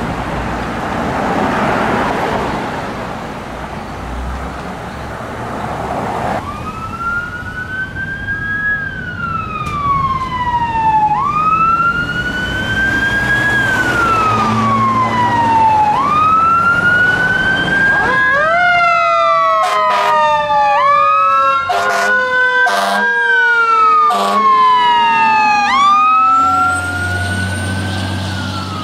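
Road and truck-engine rumble, then a fire engine's siren wailing, its pitch climbing and falling about every two and a half seconds. In the last third a second, lower siren tone slides slowly down in pitch under the wail, with a few sharp blasts.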